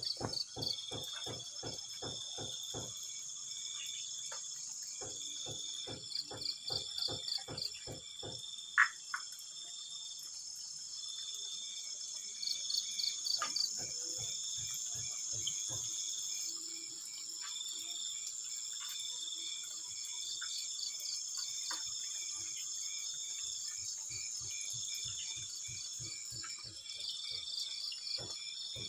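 Night chorus of calling insects: a steady high-pitched trill, with a pulsed chirping call that repeats every second or two. Runs of rapid clicking come and go several times, and one sharp click comes about nine seconds in.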